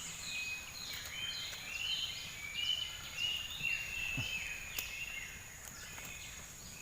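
Outdoor wildlife chirping: a quick series of short calls, each dropping in pitch, over a steady thin high-pitched whine.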